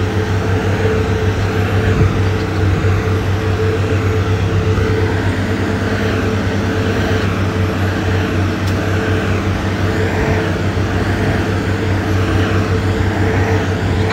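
Diesel engine of a heavy road-building machine running steadily under load, a constant low drone.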